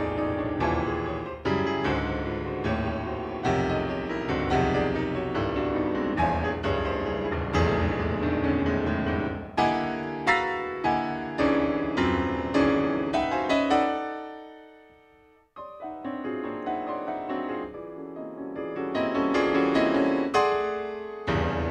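Solo piano playing dense, percussive modern concert music: rapid hard-struck chords and clusters across the keyboard. About fourteen seconds in, a chord is left to ring and die away almost to silence before the playing breaks in again with a sharp attack and builds back up.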